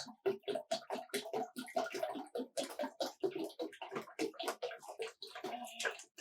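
Water being poured into a small plastic toy fish tank: a quick, uneven run of splashes as the tank fills toward its fill line.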